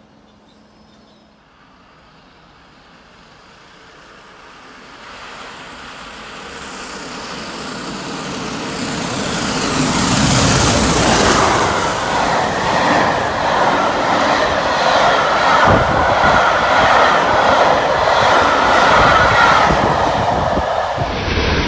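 A1 Pacific steam locomotive 60163 Tornado approaching at speed, growing steadily louder over about ten seconds. It then runs past with its Pullman coaches in a loud, steady rush of wheel and rail noise.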